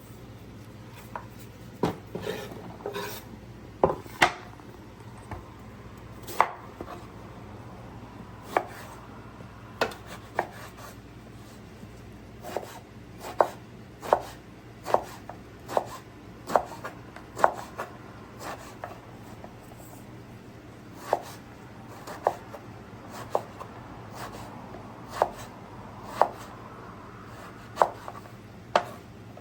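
Kitchen knife chopping food on a cutting board: separate sharp knocks at an uneven pace, roughly one a second, with a brief scrape a couple of seconds in.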